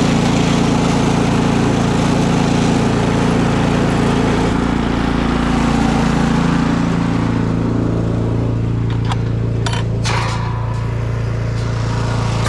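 Ariens Deluxe 28 snowblower's small engine running steadily after a cold start. About seven seconds in its pitch settles lower and the hiss thins, and a few sharp clicks come near the end.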